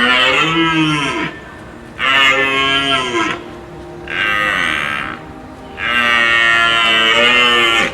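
A large animal calling four times, each call lasting a second or two, with a pitch that rises and falls.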